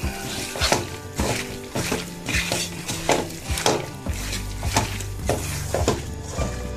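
A hand kneading masala-coated raw chicken pieces in a metal kadai: wet squishing, with pieces knocking against the pan every second or so, over background music.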